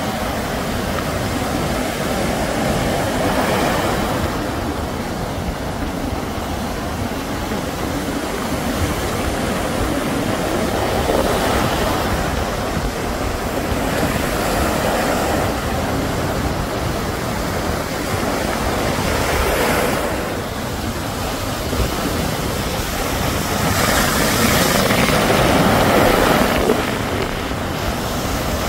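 Sea surf breaking and washing ashore, swelling every few seconds as waves come in, with wind rumbling on the microphone.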